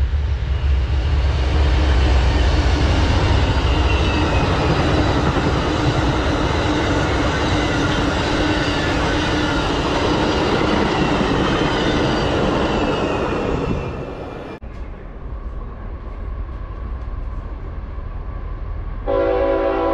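An Amtrak train led by a GE Genesis diesel locomotive passes close by: a deep engine rumble at first, then the loud, steady rush and rattle of the coaches going past. After an abrupt cut about two-thirds of the way in, a more distant approaching locomotive rumbles quietly, and its multi-tone air horn sounds suddenly near the end.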